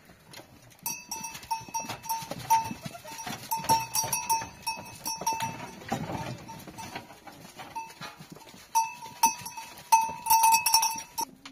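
Bells on livestock, such as sheep or goats, clinking irregularly many times as the animals move about, busiest near the end and cutting off abruptly.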